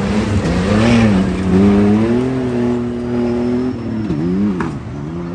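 Race truck's engine running hard: its pitch rises and dips, holds steady for about two seconds, then the revs drop and climb back twice in quick succession.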